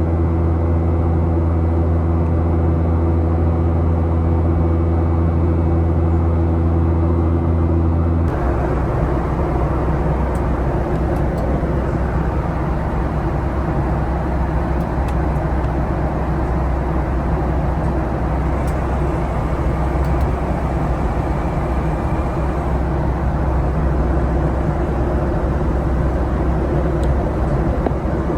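Cabin noise inside a Boeing 737-800 airliner: a steady low hum with several held tones, which changes abruptly about eight seconds in to an even, rougher rumble.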